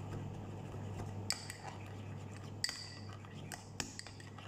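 A metal spoon stirring a thick ketchup sauce in a ceramic bowl, clinking against the bowl's side about four times, each clink with a short high ring. A steady low hum runs underneath.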